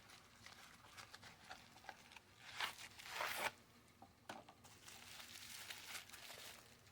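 Packaging being handled and unwrapped: irregular crinkling, rustling and tearing, loudest a little before the middle.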